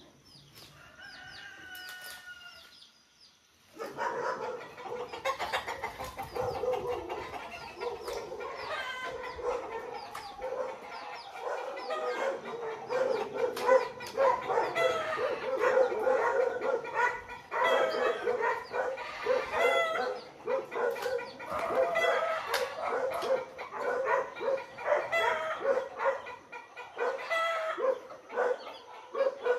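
A flock of chickens clucking and calling, quieter at first, then loud and busy from about four seconds in.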